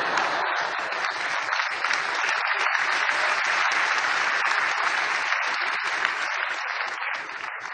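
Large audience applauding, swelling up quickly, holding steady, then dying away near the end.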